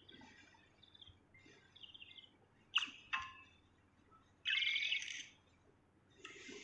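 A bird chirping in short bursts: soft high chirps, two sharp calls about three seconds in, then a louder call about four and a half seconds in.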